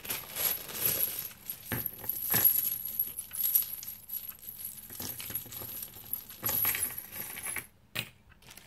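Metal keyrings and small chains on resin keychain pendants clinking and jangling as they are handled, with irregular light clicks and some rustling.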